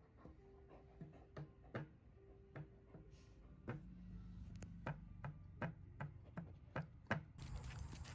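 A basset hound's claws clicking on a hard floor as she walks: sharp clicks, scattered at first, then a steady run of about two to three a second.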